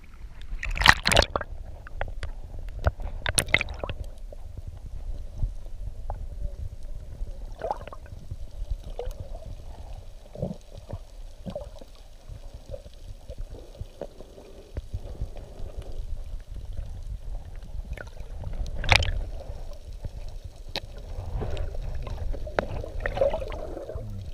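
Muffled underwater sound through a waterproof camera housing: a low rumble of moving water with gurgling, broken by a few sharp splashes, the loudest about a second in, again at three and a half seconds, and about nineteen seconds in.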